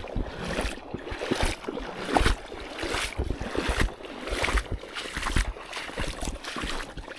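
Wading footsteps in rubber hip boots through shallow water over stones and soft sand: a splash and slosh at each step, about one step a second.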